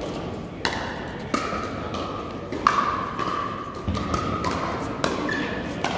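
Pickleball paddles hitting the plastic ball in a rally: about six sharp pops, roughly a second apart.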